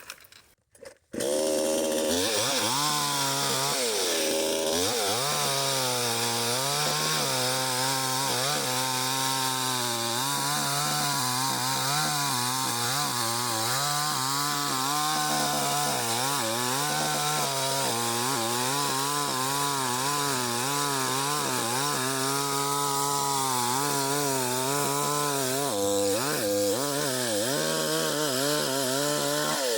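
Chainsaw running steadily. It starts abruptly about a second in.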